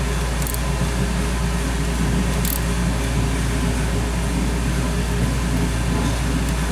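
Steady low machine hum with an even hiss, like a fan running, and a couple of faint high ticks about half a second and two and a half seconds in.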